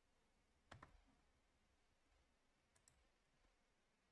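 Near silence broken by faint computer mouse clicks: a pair of clicks a little under a second in, and a fainter pair near three seconds.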